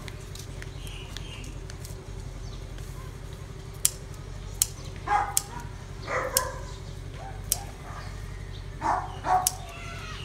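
A dog barking in short calls, two or three at a time, with a few sharp clicks in between, over a steady low hum.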